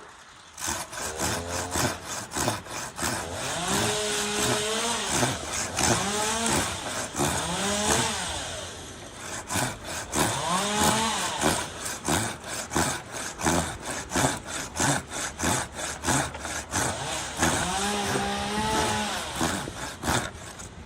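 Hand pruning saw cutting through dead aspen wood in quick back-and-forth strokes. Some strokes carry a pitched squeal that rises and falls.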